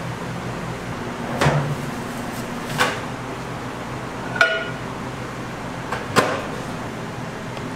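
Four sharp knocks and clunks from handling glass bowls and a microwave, over a steady low hum. The one a little past halfway carries a brief ringing tone.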